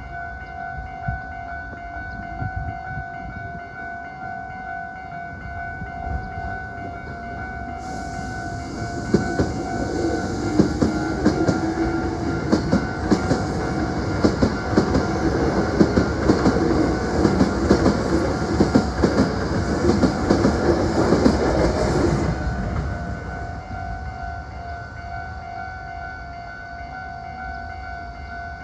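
Hankyu 7300-series eight-car electric train passing close by, its wheels clattering over the rail joints. It builds from a few seconds in, is loudest from about 8 to 22 seconds in, then fades away. A steady pulsing ringing tone runs underneath throughout.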